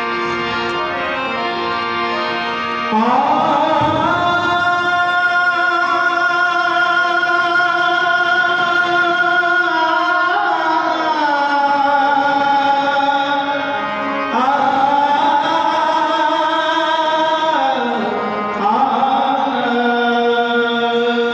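Indian devotional music introduction: long held melodic notes that shift to a new pitch every few seconds, some with short glides.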